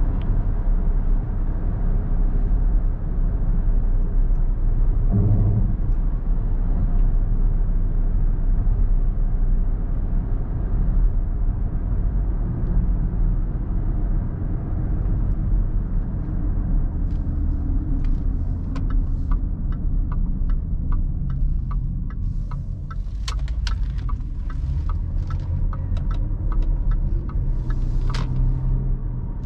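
Range Rover L322's 5.0-litre supercharged V8 cruising steadily at light throttle, heard from inside the cabin as a low rumble with road noise. About halfway through, a regular light ticking starts, about two ticks a second.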